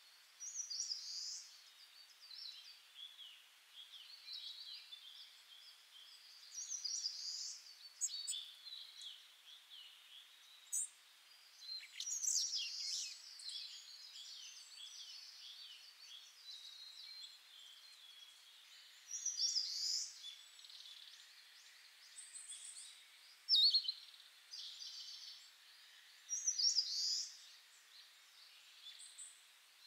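Small birds chirping and twittering in short, high-pitched bouts, with a few brief louder flurries.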